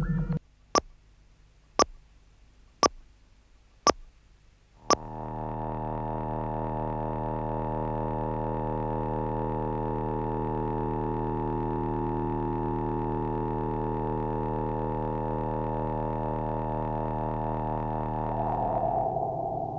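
Electronic sound effect: five sharp clicks about a second apart, then a steady synthesized drone of many stacked tones that holds for about fourteen seconds and shifts near the end.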